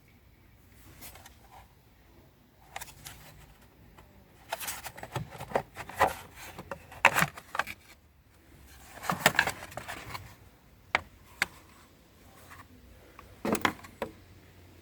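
Metal hand tools clinking and scraping while working on a car battery's terminals and fittings, in irregular clusters of clicks through the middle and again near the end.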